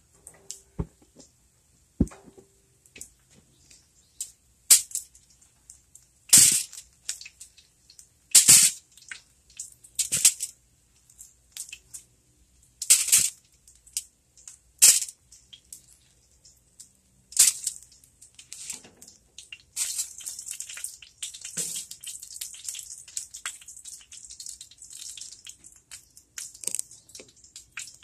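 Kitchen tongs knocking and scraping against metal sheet pans as cooked chicken legs are lifted out, a sharp clack every second or two. From about two-thirds of the way through, a steady crackling comes in.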